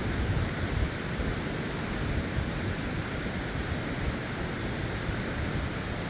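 Mountain creek swollen with snowmelt rushing steadily over rocks.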